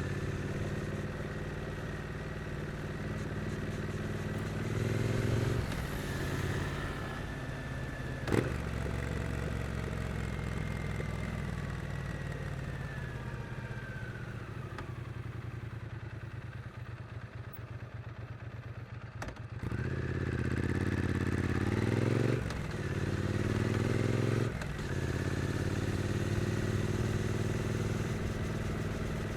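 The Triumph Street Twin's 900cc parallel-twin engine accelerates and rises in pitch, then changes up a gear about five seconds in. It eases off onto a quieter, falling note for about ten seconds, with a sharp click just after the shift. It then pulls hard again, changing up twice more.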